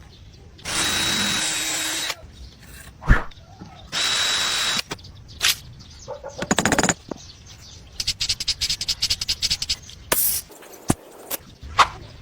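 Power drill run in two short bursts, the first about a second and a half and the second under a second, each with a steady high whine. These are followed by a quick series of rapid scraping strokes, about ten a second, and a few sharp knocks.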